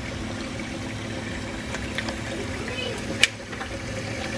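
Kitchen tap running into a sink of water, a steady splashing hiss under a low hum. A few faint ticks and one sharp click a little over three seconds in come from hands handling the lobster shell.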